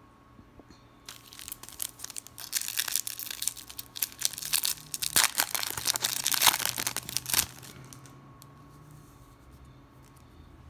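Foil-lined wrapper of a Garbage Pail Kids trading-card pack being crinkled and torn open by hand: a dense crackling rustle that starts about a second in, is loudest between about five and seven seconds, and stops shortly after.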